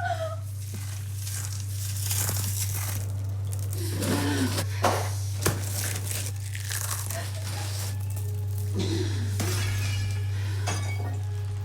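Scattered sharp cracks, clinks and crunching over a steady low hum, with a sharp crack about five and a half seconds in.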